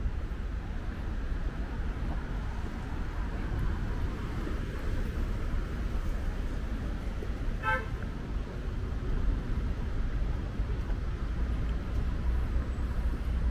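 Steady street traffic rumble, with a vehicle horn giving one short beep about halfway through.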